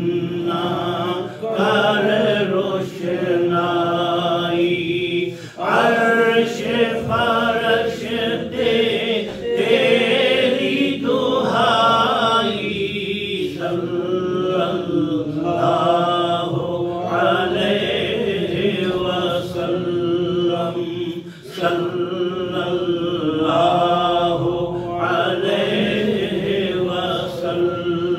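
Devotional chanting of a naat in praise of the Prophet, sung in long melodic phrases that bend slowly in pitch, with brief pauses for breath between them.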